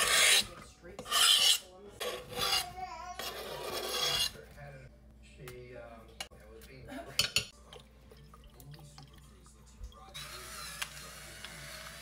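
Chopped vegetables scraped off a cutting board into a slow cooker: four loud rasping swipes in the first four seconds, then softer rustling and clicks as more vegetables drop in. From about ten seconds in, a steady whirr of an electric pepper grinder.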